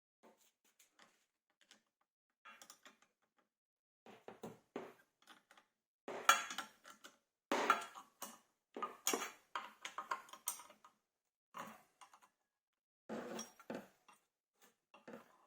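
Irregular clinks, clicks and clatters of hard objects being handled and set down, loudest in the middle, with short gaps of silence between.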